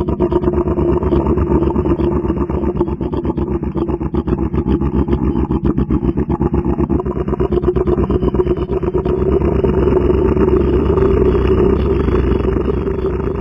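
Pygmy hippopotamus giving a long, loud growl made of rapid pulses, steady throughout.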